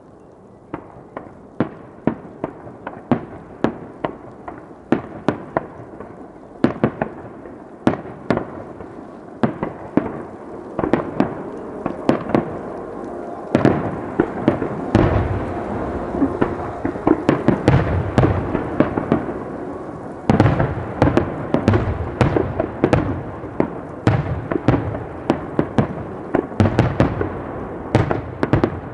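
Aerial firework shells bursting in rapid succession in a finale barrage, several sharp bangs a second over a continuous rumbling echo. About halfway through the barrage thickens, with louder, denser booms.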